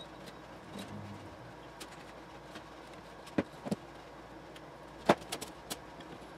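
Perforated metal top cover plate of a power-supply chassis being handled and lifted off: a few sharp metallic knocks and clicks, two about three and a half seconds in and the loudest about five seconds in, followed by lighter clicks.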